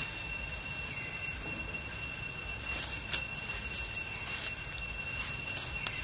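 Steady high-pitched insect drone made of several even tones, over a low rumble, with a few faint clicks.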